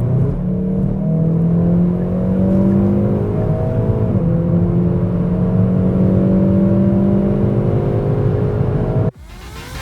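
Hyundai i30 N's 2.0-litre turbocharged four-cylinder engine accelerating hard, its note slowly rising in pitch. The pitch dips briefly at a quick upshift about four seconds in, then climbs again until the sound cuts off abruptly near the end.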